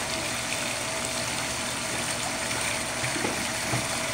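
Steady rush of water from a pool waterfall feature pouring into the pool, with a faint steady hum underneath.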